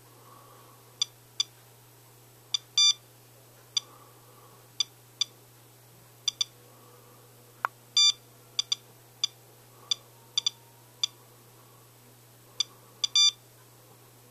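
SOEKS Geiger-counter radiation dosimeter beeping at irregular intervals, one short beep for each detected count. Some beeps come in quick pairs and a few are slightly longer. The count rate goes with a rain-sample reading of about 0.54 µSv/h, almost four times background.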